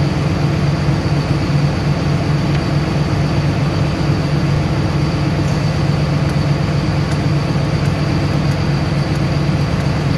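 Cat 320D excavator's diesel engine running steadily, a constant low hum with no change in speed.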